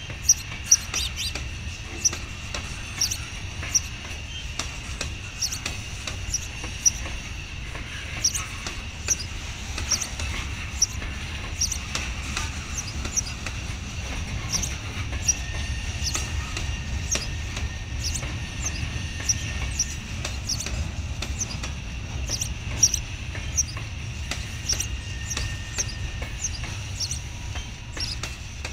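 Freight train cars rolling past with a low rumble, a steady high ringing, and repeated short high squeaks and clicks from the wheels at uneven intervals.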